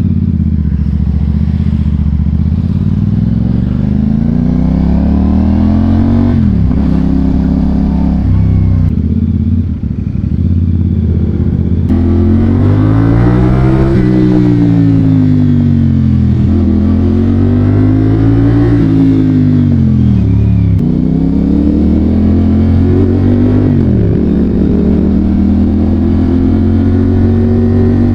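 CF Moto 450SR-S parallel-twin engine breathing through an aftermarket Akrapovič carbon-tip muffler, being ridden: it revs up through the gears several times, pitch climbing and then dropping suddenly at each shift, and eases off gradually in between.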